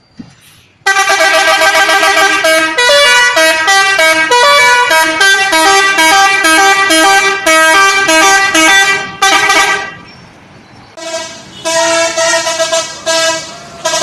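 Multi-tone telolet bus horn playing a fast tune of short stepping notes, starting about a second in. It breaks off briefly around ten seconds, then plays again.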